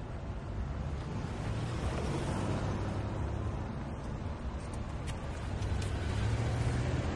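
City street traffic at rush hour: a steady low rumble of vehicle engines and tyres, swelling a little near the end.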